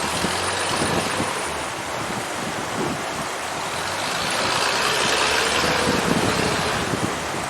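Old Soviet ZIL truck's six-cylinder side-valve petrol engine running under a heavy rushing noise, which grows louder about halfway through.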